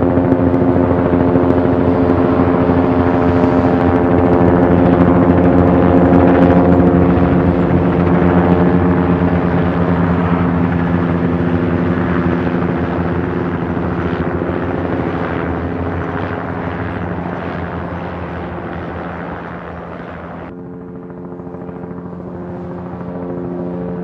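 Helicopter in flight: rapid rotor chop over a steady engine whine, growing louder over the first few seconds and then slowly fading. About twenty seconds in it cuts suddenly to a second, quieter helicopter that grows a little louder near the end.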